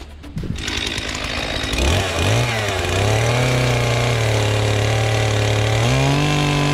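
Chainsaw starting up about two seconds in, then running at a steady speed, and revved higher near the end.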